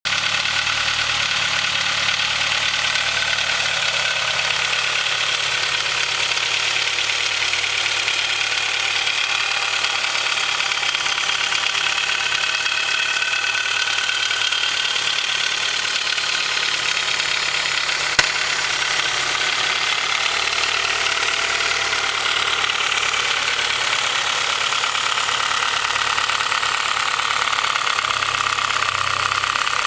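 Honda H22 inline-four engine idling cold with a steady knocking rattle of piston slap, the sign of slightly too-loose piston-to-wall clearances on its Mahle Gold Series pistons. A single sharp click is heard about two-thirds of the way through.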